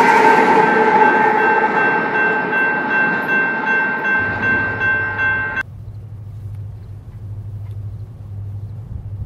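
A Union Pacific freight train's diesel locomotives receding: a steady engine drone with pulsing wheel clatter, slowly fading. About halfway through it cuts off abruptly, leaving only a faint low steady hum.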